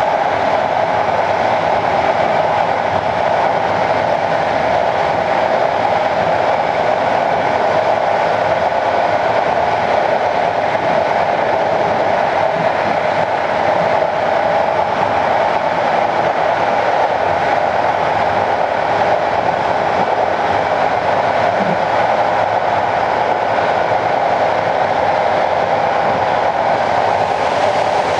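Passenger train running steadily at speed, heard from on board: a constant noise of wheels rolling on the rails, even and unbroken, with no distinct rail-joint clicks.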